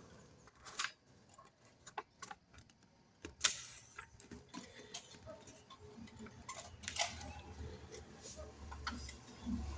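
A sheet of paper being folded and smoothed flat by hand on a wooden tabletop: scattered soft clicks, taps and rustles, the sharpest about three and a half seconds in and again at about seven seconds.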